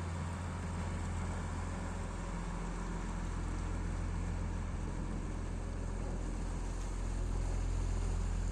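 Boat engine running steadily, a low hum that grows a little louder about seven seconds in.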